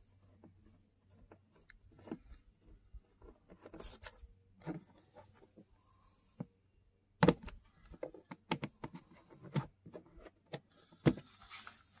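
Scattered light clicks, clinks and knocks of hand tools and small metal parts being handled while taking apart a generator's casing, with a sharper knock about seven seconds in.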